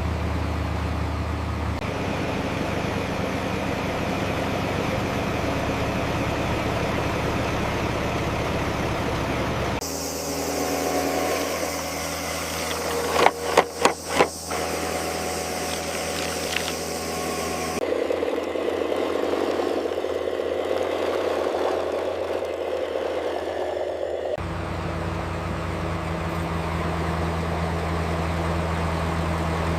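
Construction machinery engines running steadily, the engine note changing abruptly several times from one machine sound to another. About halfway through, four loud knocks in quick succession.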